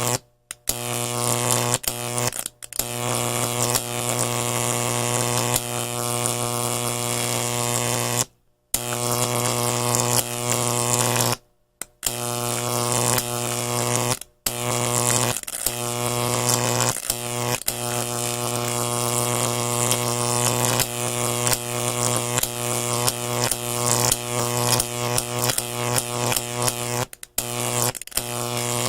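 A motor sound effect: a steady mechanical hum with a rapid ratcheting clatter, played in several stretches split by brief silences.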